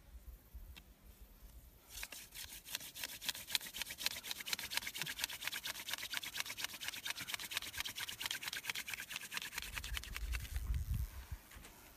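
Hand-drill friction fire: a grass-tree (Xanthorrhoea) spindle spun back and forth between the palms, grinding in a hibiscus hearth board to build an ember. It makes a fast, even scratching rhythm of several strokes a second that starts about two seconds in, with a low rumble near the end.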